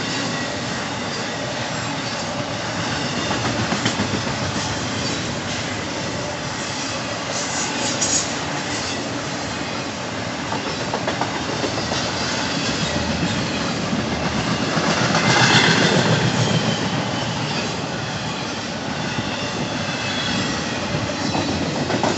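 Intermodal freight cars loaded with double-stacked containers and trailers rolling past close by: a steady rumble of steel wheels on rail with clickety-clack over the rail joints, and now and then a short high wheel squeal. It grows louder about 15 seconds in.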